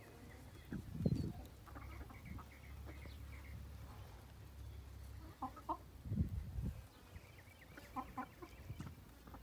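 Chickens clucking: a quick run of short calls about two seconds in, then pairs of calls around five and a half and eight seconds. Two low thumps, about a second in and near six seconds, are the loudest sounds.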